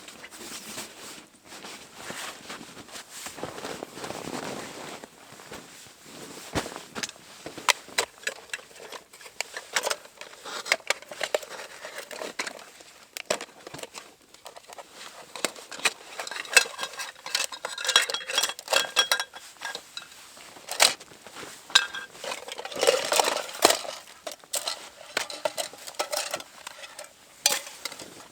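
Metal camping gear being handled: a busy run of clicks, knocks and clinks, a few of them ringing briefly.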